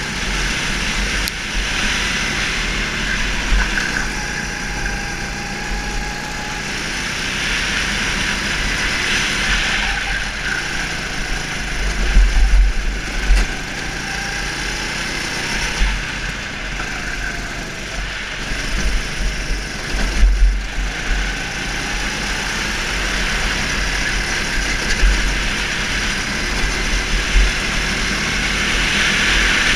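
Go-kart engine running through a lap, its pitch rising and falling as the kart accelerates and slows for corners, with bouts of heavier low rumble.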